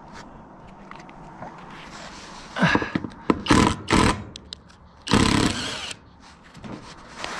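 Cordless impact driver driving a screw through steel roof flashing: three short bursts, then one longer burst of about a second.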